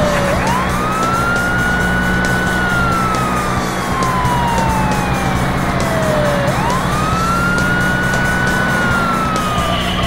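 Police car siren wailing in slow cycles, twice: the pitch sweeps quickly up, holds, then slides slowly down. A steady low hum runs underneath.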